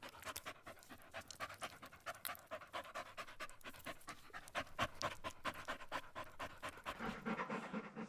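A dog panting in quick, short, even breaths.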